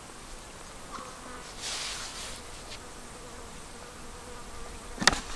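Insects buzzing steadily. About two seconds in there is a soft rustle of hands working floury damper dough, and near the end a single sharp knock.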